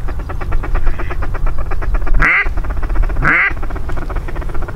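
Waterfowl calling: a rapid chattering run of short notes, with two louder, longer calls about two and three seconds in.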